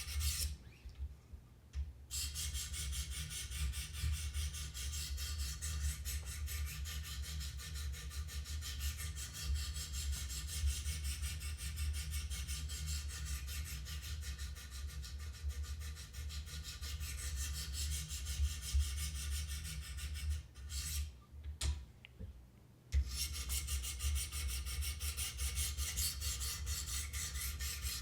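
200-grit diamond stones of a Wicked Edge guided-rod sharpener stroked up and down a CPM-M4 steel knife edge: a steady rasping scrape, with two brief pauses, one about a second in and another a little after 20 seconds. This coarse stage is setting the bevel and raising a burr.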